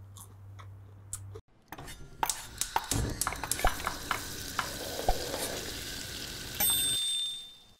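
Food sizzling as it fries in hot oil, with sharp clinks and taps of utensils against a pan. A bright ringing tone comes in near the end, then everything fades out.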